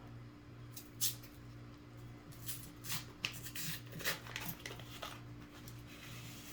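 Paper coin roll and pennies being handled: a string of short, sharp rustles and clicks at irregular intervals.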